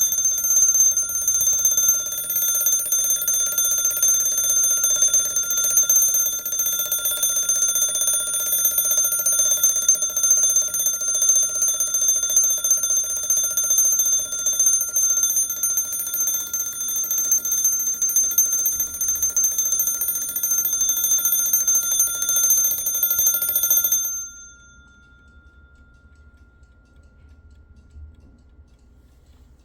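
Antique Junghans B32 mechanical alarm clock ringing its alarm bell, a continuous rapid ring that cuts off suddenly about 24 seconds in. After the cut-off, the bell's lowest tone lingers and fades away over a few seconds.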